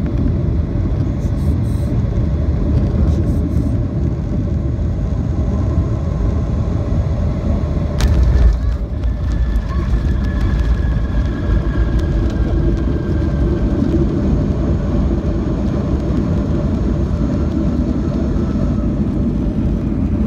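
Steady engine and airflow rumble in the cabin of a jet airliner landing. About eight seconds in, the wheels touch down with a sudden thump, followed by a heavier rumble as the airliner rolls down the runway with its spoilers up. A faint whine falls slowly in pitch.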